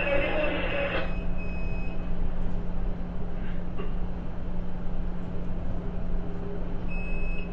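Helicopter setting down on a tanker's helideck, heard at a distance as a steady low drone and rumble. A loud rushing noise stops about a second in, and a faint high-pitched tone sounds briefly soon after and again near the end.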